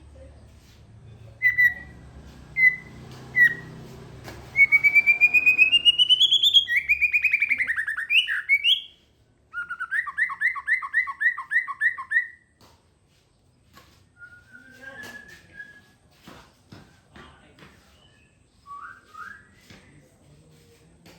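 Songbird singing: three short chirps, then a fast trill rising in pitch, then a run of rapid repeated two-note phrases. After that come quieter scattered notes and clicks.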